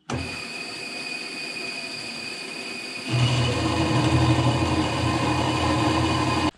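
Metal-cutting band saw starting up and running, with a steady high whine from the blade and drive. About three seconds in it grows louder and deeper as the blade bites into the steel workpiece, then cuts off suddenly.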